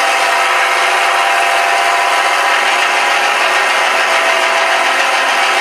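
Simulated Rolls-Royce Merlin V-12 aircraft engine sound from a Shockwave sound module, played through two small 3-inch speakers in a model plane, running steadily at constant throttle. It lacks any deep bass.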